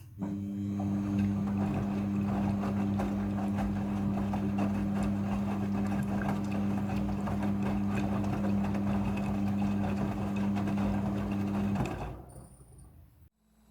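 Midea front-loading washing machine running: a steady motor hum over a dense rushing noise, which starts suddenly and stops about twelve seconds in.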